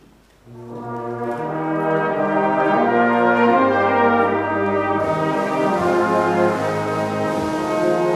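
Brass band starting to play a hymn tune, coming in about half a second in and playing full, held chords that change every second or so.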